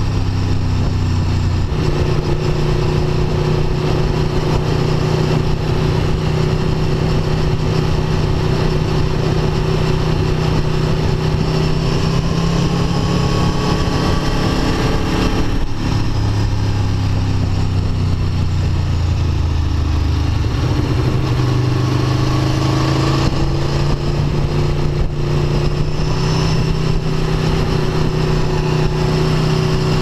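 Aprilia Tuono V4 1100 RR's 65-degree V4 engine heard onboard under way, running at steady revs with wind noise on the microphone. About halfway through the engine note breaks off briefly and the revs fall, then build back up and hold steady again.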